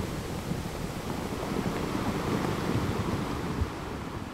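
Sea waves washing, with a low wind rumble, slowly fading out.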